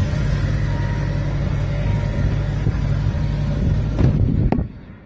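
Jeep engine idling steadily just after being started, with a sharp click about four and a half seconds in, after which the sound briefly drops away.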